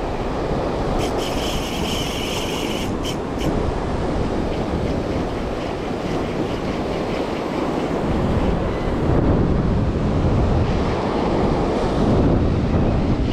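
Surf breaking and washing over a rocky pebble shore, with wind buffeting the microphone, growing louder in the second half. A brief higher hiss rises about a second in and lasts a couple of seconds.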